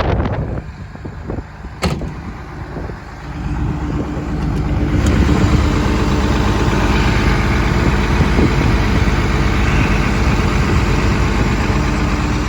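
Komatsu PC300LC-7 excavator's diesel engine idling steadily, with a sharp knock about two seconds in. From about four seconds in the sound grows louder and fuller.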